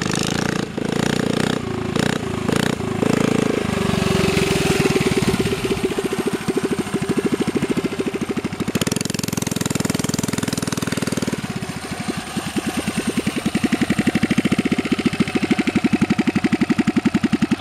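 Coleman CT100U mini bike's small single-cylinder engine being ridden: the throttle is blipped on and off in the first few seconds, then it runs steadily, and about twelve seconds in it drops to a slower, even chug that grows louder as the bike comes closer.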